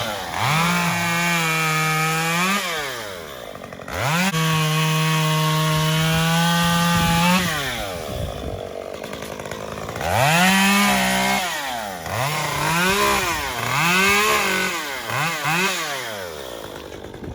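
Small chainsaw revving up and held at full throttle for a few seconds at a time, three times, then a run of short quick revs near the end, while limbing a felled tree.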